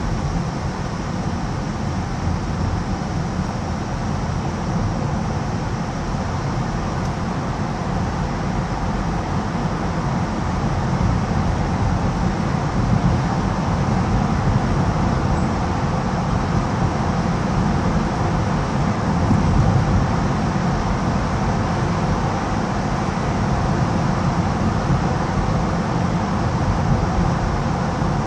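Steady low rumble of traffic and tyre noise from cars driving through a road tunnel, swelling slightly about halfway through.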